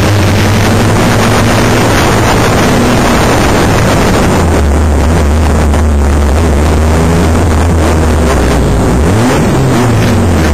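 Banger race car's engine heard from on board, running loud, with wind and road noise on the microphone. The revs drop about four seconds in and climb again near the end.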